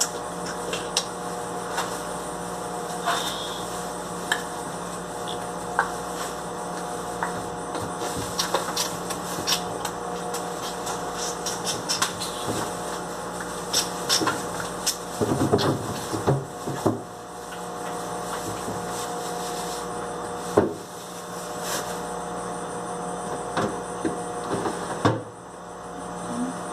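Scattered knocks, clicks and rustles of food packages and containers being handled and set onto refrigerator shelves, busiest about two thirds of the way through, over a steady electrical hum.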